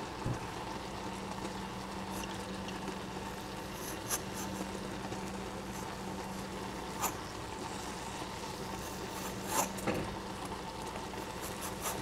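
A citrus zester scraping strips of peel off a lemon, quiet rubbing strokes over a steady low hum, with a few soft ticks.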